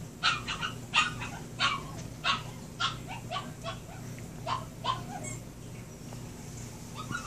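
Young puppy whining and yelping in a quick string of short cries that fall in pitch, about fifteen of them over some five seconds, then a pause before it starts again near the end.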